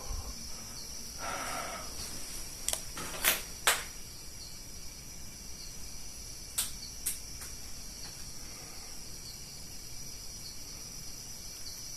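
Steady high-pitched chirring of insects, with a scatter of sharp clicks and knocks: two loud ones a few seconds in and a few lighter ones a little later.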